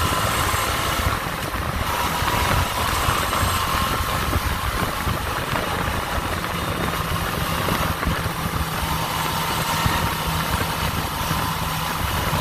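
Suzuki V-Strom 650's V-twin engine running steadily, with a constant whine-like tone over it. It carries the metallic rattle that comes in around 6,000 rpm and 51 mph, whose cause is unknown.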